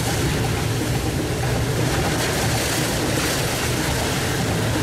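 Steady rush of gale-force wind and sea water surging and splashing along the hull of a small sailboat heeled hard over, with a low rumble of wind on the microphone underneath.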